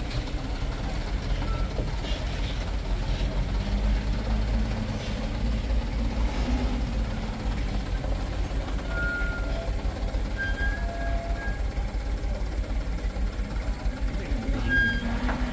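Light cargo truck's diesel engine running steadily under load as the truck creeps along a rough dirt climb, a deep even rumble.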